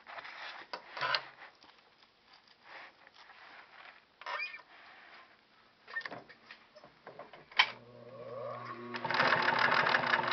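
Scattered rustles and clicks of fabric and velcro being positioned, then nearly eight seconds in a sewing machine's motor starts humming and about a second later the machine begins stitching rapidly, sewing the loop-side velcro down.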